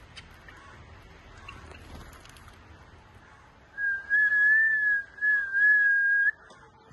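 A steady, pure whistled note, slightly wavering in pitch, held for about two and a half seconds with a short break in the middle. It begins about four seconds in.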